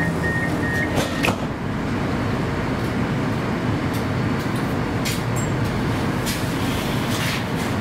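An 81-765 "Moskva" metro train, heard from inside the car, running with a steady rumble of wheels and traction equipment. A few sharp clicks come about a second in, and brief hissing sounds come later.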